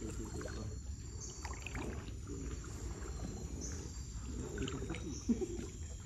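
Kayak paddle strokes dipping and splashing in calm water, irregular and unhurried, with one slightly louder splash near the end.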